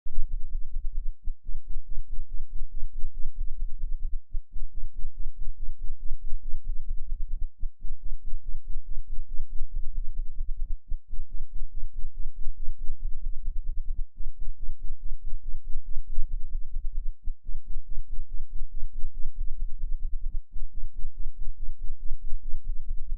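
7 Hz bass test tone, heard as a deep, rapid throbbing pulse with a rough, distorted edge. It briefly cuts out about every three seconds.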